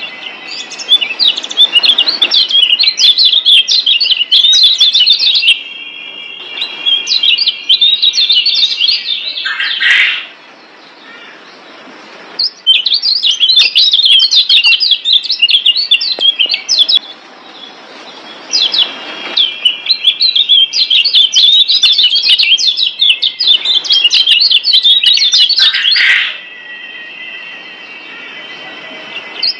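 Yellow white-eyes (kecial kuning, Zosterops) singing a masteran (tutor) song: long runs of rapid, high twittering chatter lasting several seconds each, four times, broken by short pauses in which steady high whistled notes hold.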